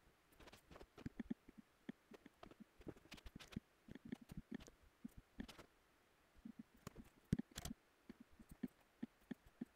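Faint, irregular clicks and taps from working a computer mouse and keyboard, coming in quick clusters with a short pause about six seconds in.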